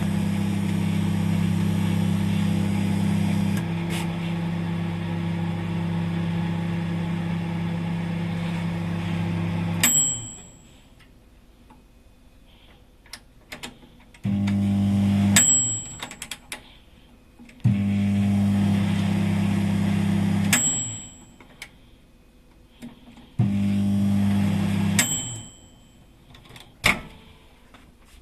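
Twinbird DR-D219 turntable microwave oven running with a steady low mains hum, which stops about ten seconds in with a short high beep. Three shorter runs follow, each ending in the same beep, with small clicks between them.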